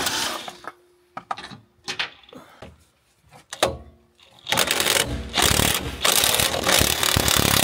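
An impact wrench hammering at a nut: a burst that dies away in the first second, a few scattered clicks and one sharp metal knock a little past halfway, then a long steady run of rapid hammering over the last three seconds.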